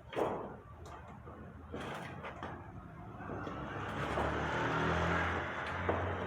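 Pliers folding over thin sheet-metal tabs on a chimney-pipe collar, with a few sharp clicks. Under them a low rumble builds from about two seconds in and fades near the end.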